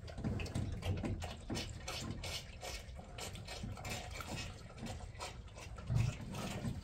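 Pigs drinking from nipple waterers on a PVC water line: rapid, irregular clicking of the drinker valves with water sounds. A short low thump comes about six seconds in.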